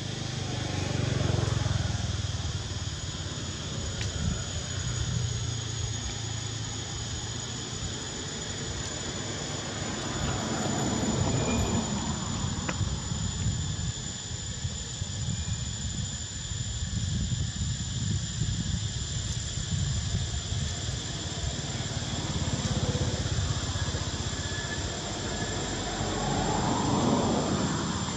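Steady high-pitched drone of insects in the surrounding forest, with a low rumble that swells and fades several times.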